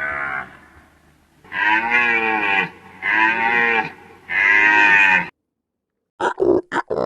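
A deer calling: a series of drawn-out, bellowing calls about a second long each, with a short gap between them. They stop at about five seconds; near the end a run of short, quick grunts begins.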